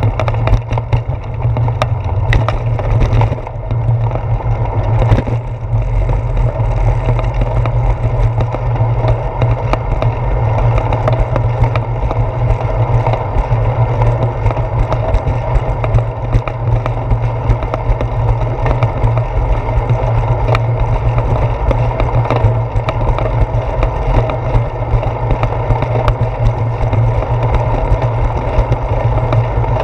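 Steady wind and road rumble picked up by a handlebar-mounted GoPro Hero 4 on a bicycle rolling over a concrete path, with a few sharp knocks in the first six seconds as the tyres cross joints in the pavement.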